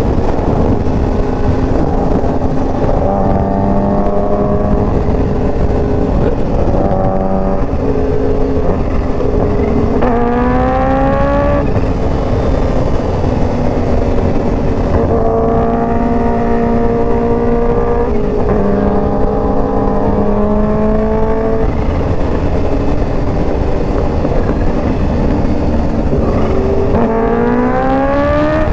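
Yamaha R1's inline-four engine with an aftermarket Competition Werkes exhaust cruising at freeway speed under heavy wind rush. The throttle is rolled on twice, about ten seconds in and again at the very end, and the engine note climbs sharply each time.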